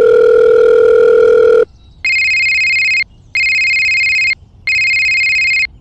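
Telephone sound effects: a steady electronic tone for about two seconds, then an electronic phone ring pulsing on and off about once a second, three times, with a fourth ring starting near the end.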